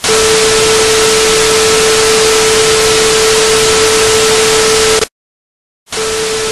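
Television static: loud hiss with a steady mid-pitched tone under it. It cuts off about five seconds in and comes back a little quieter for about a second near the end.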